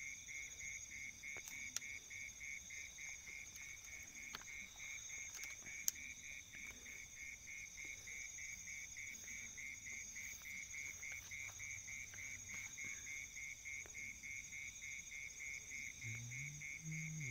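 Night chorus of calling insects, such as crickets: a steady trill pulsing several times a second, with steady higher buzzing above it. A few sharp clicks break in, the loudest about six seconds in.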